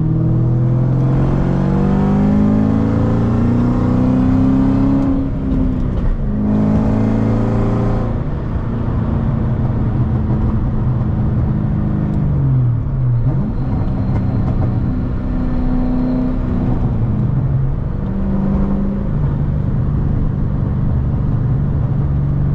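2003 Ford Mustang SVT Cobra's supercharged 4.6-litre V8 pulling through the gears. The engine note climbs, drops at each shift, dips and climbs again, then settles to a steady cruise.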